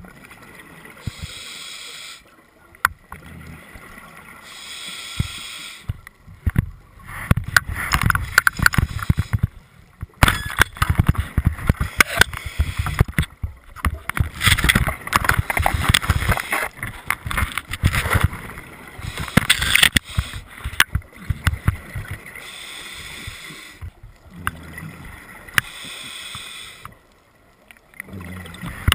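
Underwater sound picked up through a GoPro's housing on a dive over a reef: irregular gurgling and crackling bubbles through the middle, with short stretches of hiss near the start and near the end.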